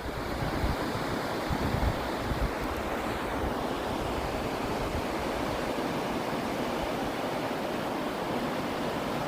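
Ocean surf washing onto a beach, a steady rush of noise, with wind buffeting the microphone in the first couple of seconds.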